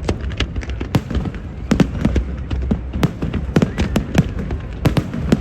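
Fireworks bursting in quick, irregular succession: many sharp bangs, several a second, over a continuous low rumble.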